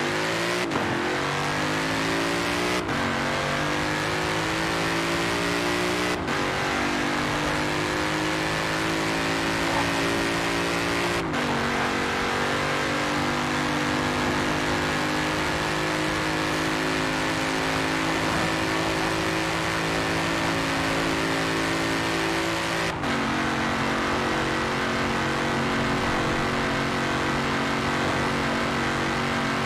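Ford Mustang engine accelerating through the gears. Its note climbs steadily in each gear and drops sharply at each of five upshifts, with the gaps between shifts getting longer as the gears rise.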